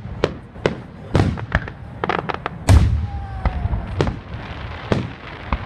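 Fireworks going off: an irregular string of sharp bangs and cracks, about two or three a second, the heaviest about halfway through, followed by a faint falling whistle.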